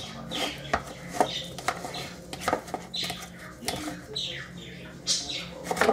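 Metal fork mashing roasted garlic cloves into butter in a plastic bowl: irregular clicks and scrapes of the fork against the bowl.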